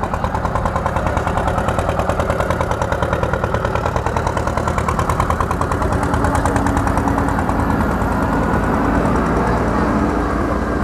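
Diesel engines of JCB backhoe loaders running as the diggers drive past, with a fast, even pulsing beat for the first several seconds that then settles into a steadier engine note.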